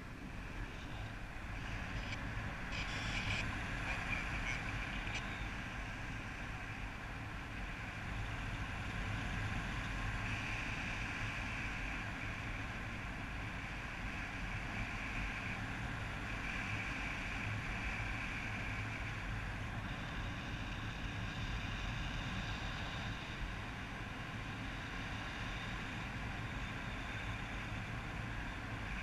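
Steady rush of airflow buffeting the camera microphone during a paraglider flight, a low rumbling wind noise, with a faint high tone coming and going over it.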